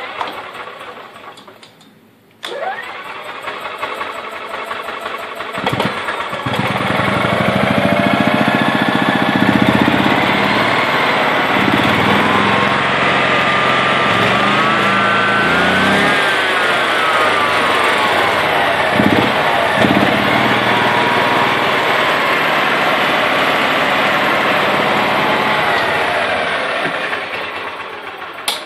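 EZGO golf cart's Kawasaki FE400 13 hp single-cylinder four-stroke engine being cranked by its belt-driven starter-generator with a rising whine. It catches about six seconds in and runs with its speed rising and falling, in good running order. Near the end it winds down as it is shut off.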